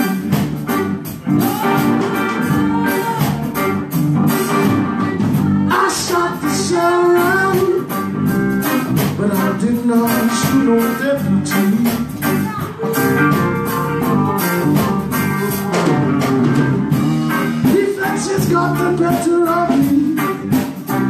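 A live band playing a guitar-driven blues-rock song, with a steady beat.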